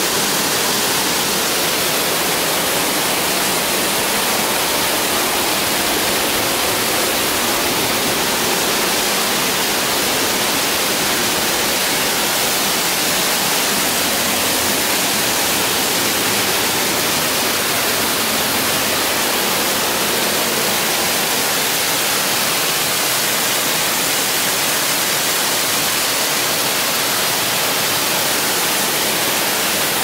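Nabegataki waterfall, a wide curtain of water falling from a rock overhang into its pool: a steady rush of falling and splashing water.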